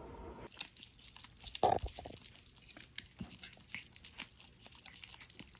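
Two kittens eating wet cat food from a plate: faint, quick chewing in scattered small clicks, with one louder sound about a second and a half in.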